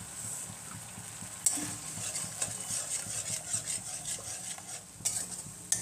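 A metal spoon stirring and scraping through a yogurt curry gravy that sizzles in a steel kadai. The quick, repeated scrapes start about a second and a half in, over a steady sizzle.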